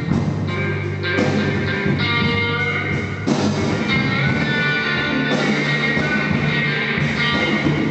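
A blues-rock band playing, with guitar to the fore.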